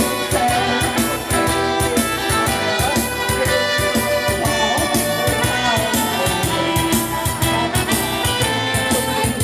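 Karaoke backing music with a steady beat and a brass-led melody, played loud over a PA speaker.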